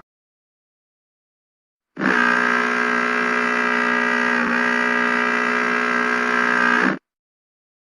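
A horn sounding one long, steady blast of about five seconds at a fixed pitch, starting abruptly about two seconds in and cutting off sharply.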